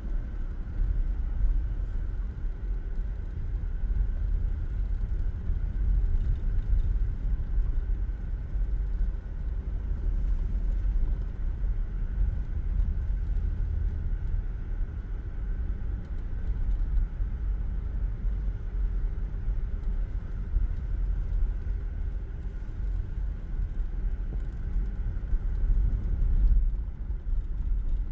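Steady low rumble of a vehicle on the move, road and engine noise with a faint steady hum above it.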